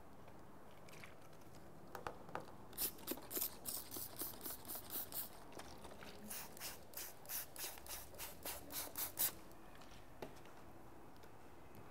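Hand trigger spray bottle squirting tack solution onto paint protection film. A rapid run of short hissing squirts, about three a second, lasts for several seconds, with a few light taps before and after.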